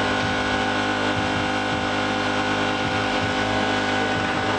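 A steady machine hum made of several unchanging pitches, holding at one level throughout.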